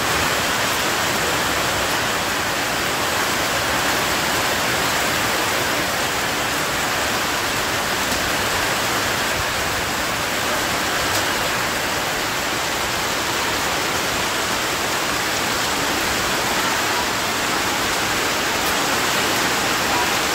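Heavy rain pouring down during a storm: a steady, dense hiss.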